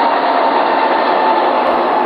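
Steady, loud rushing noise, even throughout, with a faint steady tone running through it.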